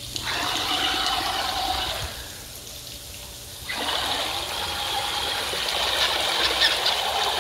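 Water churning and splashing as the spinning paddle wheels of a Hot Wheels RC Terrain Twister drive it across a swimming pool. The churning drops off for about a second and a half a couple of seconds in, then picks back up.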